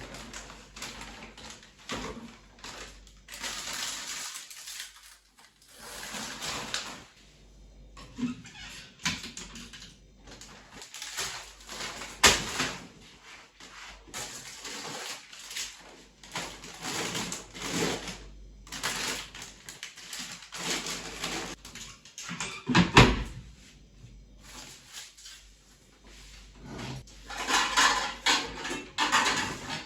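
Household chore sounds indoors: irregular rustling, scraping and clatter of things being handled, with a sharp knock about twelve seconds in and a heavy thump about 23 seconds in.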